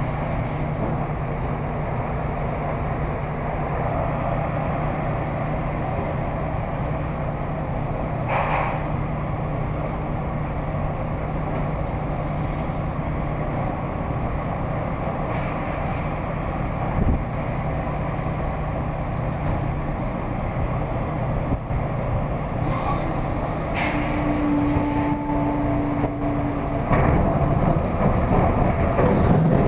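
A motor vehicle running with a steady low engine rumble and hum. There are a few brief clicks, a short steady tone a little after two thirds of the way in, and the noise grows louder near the end.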